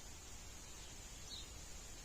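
Quiet outdoor background: a faint steady hiss with a steady high whine, and a brief faint high chirp about two-thirds of the way through.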